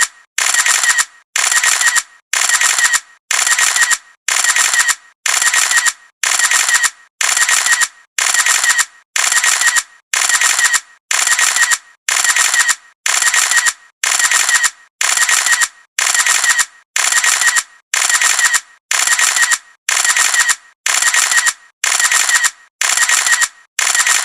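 Photo camera shutter sound, fired again and again at an even pace a little more than once a second. Each shot is a sharp mechanical click that trails off over about half a second.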